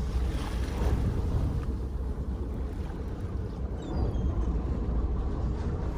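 Fishing boat under way on open water: a steady low rumble mixed with wind and water noise.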